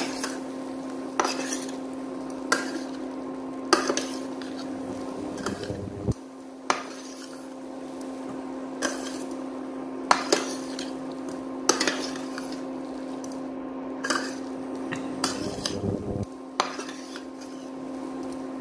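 Metal spoon stirring semolina balls in a stainless steel pan, scraping and clinking sharply against the pan about once every second or so, over a steady low hum.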